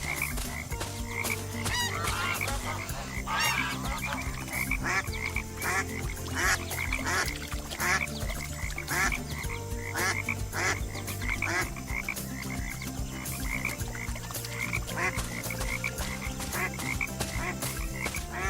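Frogs croaking: a dense run of short repeated calls, several a second, over low steady tones.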